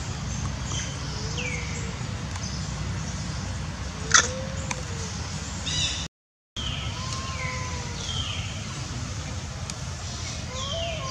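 Outdoor ambience: a steady low rumble with several short animal calls over it, high chirps falling in pitch and a few lower arched calls. There is one sharp click about four seconds in, and the sound drops out briefly in the middle.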